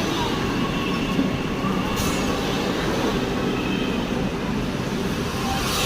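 Vande Bharat Express electric train set rolling along the track into a station: a steady rumble of wheels on rails with faint high tones, and one sharp click about two seconds in.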